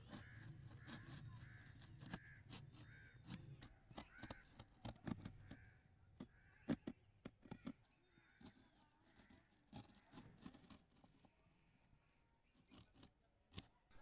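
Utility knife blade cutting and scoring corrugated cardboard: many sharp clicks and short scrapes as the blade pushes through. Crows caw repeatedly in the background through about the first half.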